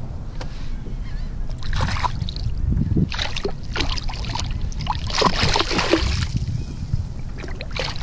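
A hooked trout thrashing and splashing at the surface beside the boat, in several bursts of splashing. The longest burst comes about five to six seconds in, over a steady low rumble of wind on the microphone.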